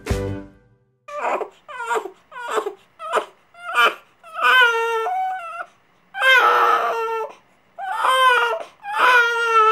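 One-month-old baby boy crying: a run of short cries about twice a second, then longer wails from about four seconds in.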